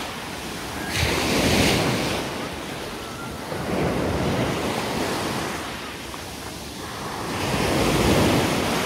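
Small Aegean sea waves breaking and washing up on a sandy beach, the surf rising and falling three times as each wave comes in.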